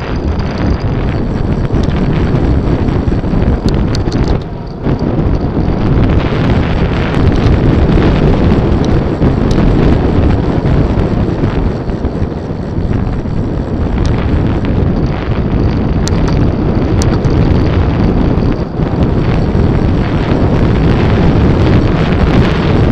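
Loud, steady wind buffeting on the microphone of a camera riding along on a moving bicycle, easing briefly about four and a half seconds in.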